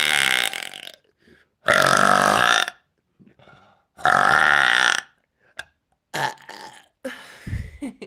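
A woman belching loudly on purpose. A long burp trails off at the start, then come two loud burps of about a second each, some two seconds apart. A few short, softer sounds follow near the end.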